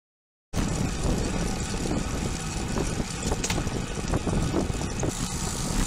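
Wind rushing over a bicycle-mounted camera's microphone, with tyre noise on asphalt, while riding. It comes in suddenly after about half a second of silence at the start.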